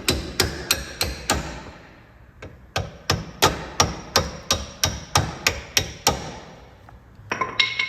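Hammer blows on steel suspension parts, struck at an even pace of about three a second. The blows stop for over a second, then start again in a longer run. A few quicker hits near the end leave a ringing tone.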